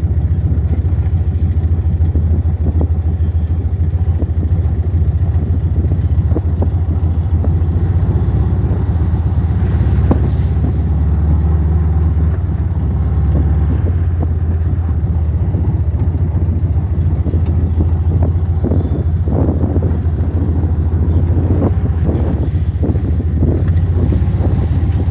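Vehicle engine running steadily at low revs while driving a rough, muddy off-road track, with irregular knocks and rattles from the bumps, more of them in the second half.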